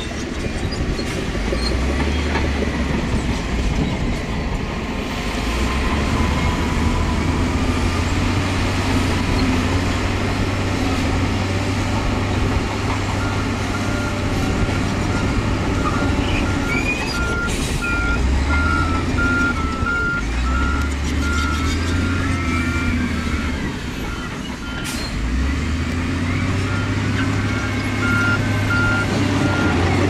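Diesel engine of heavy earthmoving equipment working under load, its revs rising and dropping back several times. A reversing alarm beeps on and off through the second half, with high metallic squeaks in the middle.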